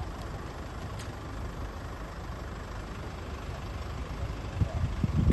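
Motor vehicle engine idling with a steady low rumble, becoming louder and more uneven near the end.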